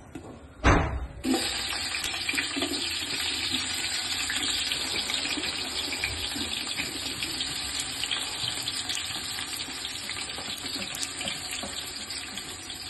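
Chopped onions dropped into hot oil in a large aluminium pot: a thump about a second in, then a steady, dense sizzle and crackle as the onions start to fry.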